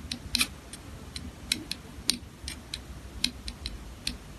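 Light, irregular clicks and taps of two-part AB epoxy glue being stirred together, several a second at uneven spacing.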